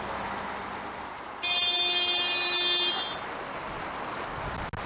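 Narrowboat horn sounding one steady blast of about a second and a half, a buzzy tone with many overtones. It is the warning given on nearing a bridge hole and a sharp bend.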